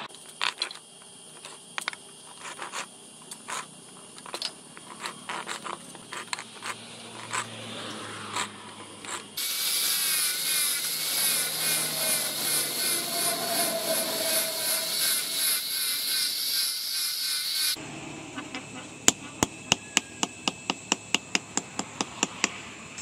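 Scattered light clicks and taps, then an angle grinder with a sanding disc running against a knife handle for about eight seconds, the loudest part. After it stops, a hammer strikes a metal ferrule on the handle in quick, even taps, about three or four a second.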